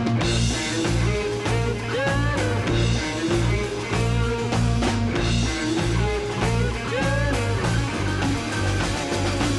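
Hard rock power trio playing live: electric guitar lines with bent notes, about two and about seven seconds in, over bass guitar and drums.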